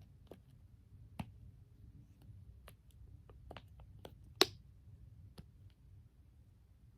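Scattered small clicks and taps of plastic fidget toys being handled, one sharper click about four and a half seconds in.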